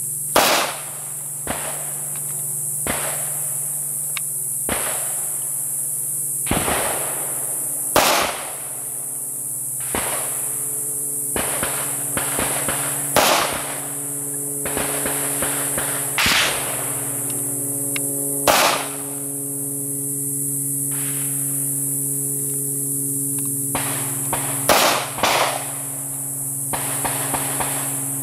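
Pistol gunfire on a shooting range: single shots fired at irregular intervals a few seconds apart, about seven loud ones with fainter shots between them.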